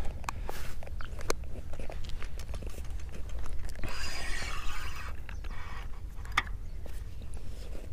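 Feeder-fishing rod and reel in use while casting bait out. A hiss of about a second comes from the tackle around four seconds in, among scattered clicks and a sharper click near the end, over a steady low rumble.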